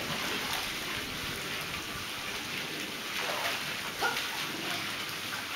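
Water spilling steadily from a raised spa into a swimming pool, with light splashing from swimmers and a short high call about four seconds in.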